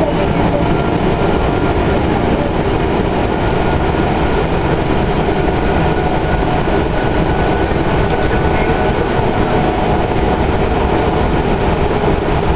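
Kinki Sharyo light rail car running at speed, heard from inside the car: a steady rolling and running noise with a faint steady whine above it.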